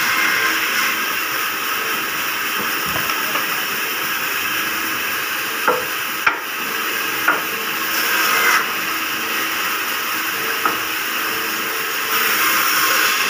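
Vertical band saw running steadily, its blade hissing through wood as planks are fed through it, the cutting growing louder a little after the middle and again near the end. A few sharp knocks of wood on the machine come through around the middle.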